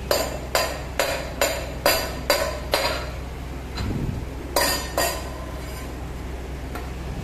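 Stainless steel tumbler knocked repeatedly on a hard tabletop by a toddler: about seven sharp metallic knocks, roughly two a second, then a pause and two more about four and a half seconds in.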